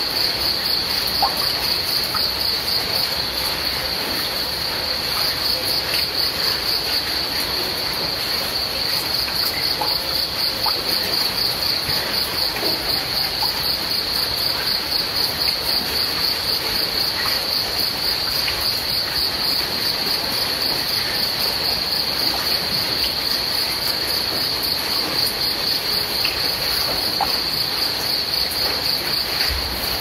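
Crickets chirping in a continuous high, pulsing trill over a steady background hiss with a few faint scattered ticks.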